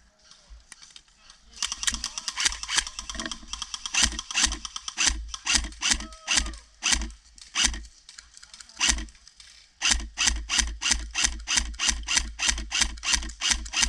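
AR-style airsoft rifle firing single shots in quick strings, a few sharp cracks a second, with a short pause about nine seconds in and then a steady run of about three to four shots a second.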